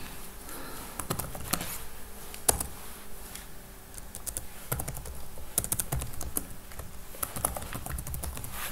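Typing on a computer keyboard: irregular key clicks in short runs, with brief pauses between them.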